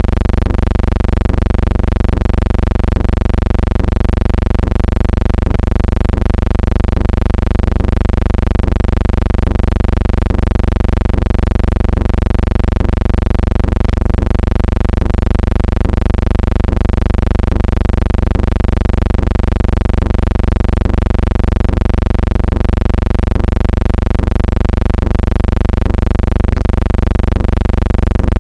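Steady, loud electrical hum with many overtones, unchanging in pitch and level, with no sound of the filmed scene: playback noise on the soundtrack of a silent film transfer.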